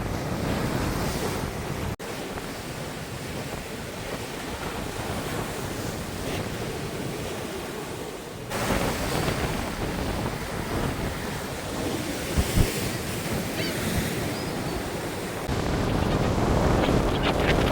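Sea surf washing in and breaking on the shore, with wind buffeting the microphone. The noise swells and falls, and its level jumps abruptly a few times.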